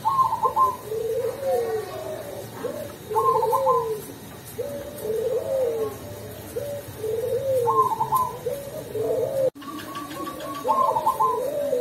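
Zebra dove (perkutut) singing its coo song: short rising-and-falling coo phrases repeated every second or so, with a higher trilled note opening some phrases. The voice is the soft, mellow 'ulem' quality keepers prize. There is a momentary break in the sound about nine and a half seconds in.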